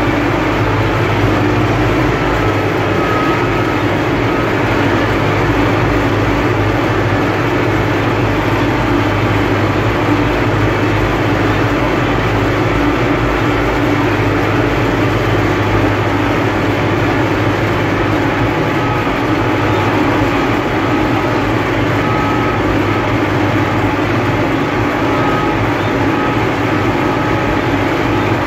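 UTB Universal 650 tractor's four-cylinder diesel engine running steadily under load, heard from inside the cab while it pulls a combinator (seedbed cultivator) across a field.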